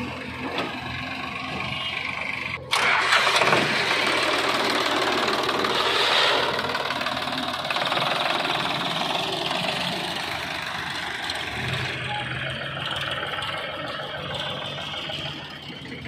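Diesel engines of a backhoe loader and a Sonalika tractor running. About three seconds in, the sound jumps abruptly louder and harsher, with an engine running close by, then slowly eases off over the last few seconds.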